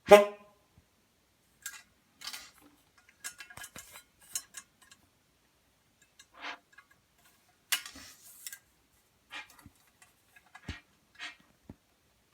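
Antique early-1900s brass car horn giving one short, loud honk with a rich stack of overtones right at the start. After it come scattered light clicks and knocks, with a faint brief tone about six and a half seconds in.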